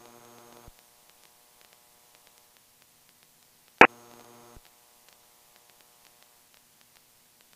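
Two sharp electronic clicks about four seconds apart, each followed by a short buzzing tone of under a second that cuts off abruptly, over near silence.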